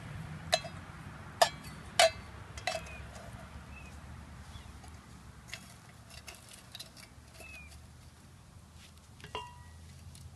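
Metal canteen cup and cup stand clinking against each other as they are set down in the campfire coals: four sharp ringing clinks in the first three seconds, another near the end. Between them, light crackling ticks from the wood fire over a steady low hum of distant highway traffic.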